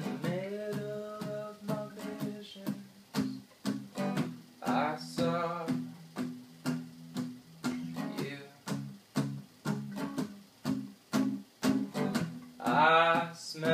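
Acoustic guitar strummed in a steady rhythm, with a voice singing long held notes near the start, briefly around the middle, and again near the end.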